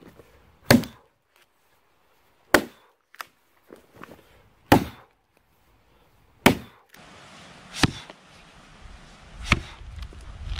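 An axe chopping into a log: six sharp strikes about two seconds apart, with a few lighter knocks between the early ones as chips split off.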